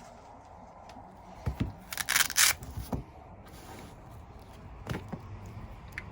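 Hand tools and bike parts being handled: scattered light clicks and knocks, with a short scraping rustle about two seconds in that is the loudest sound.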